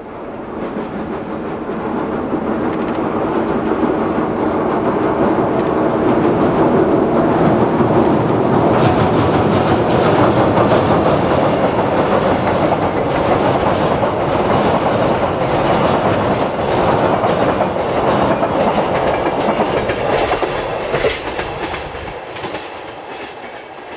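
Container freight train hauled by an EF81 electric locomotive running across a steel girder bridge. The sound builds over the first few seconds, the wheels clack over the rail joints as the wagons roll past, and it fades near the end.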